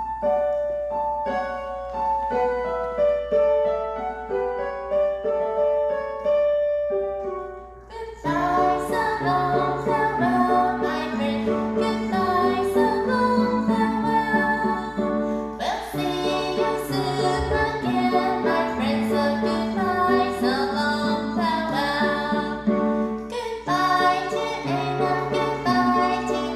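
Goodbye song in three-beat time playing: a piano intro picking out a simple melody, then from about eight seconds a fuller accompaniment with a woman singing.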